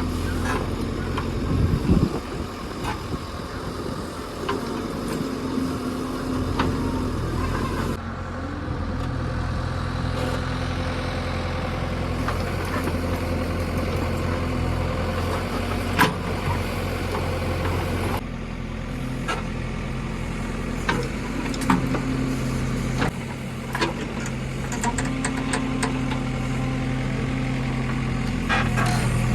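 JCB 3DX backhoe loader's diesel engine running as it works, its pitch shifting now and then, with sharp knocks at intervals.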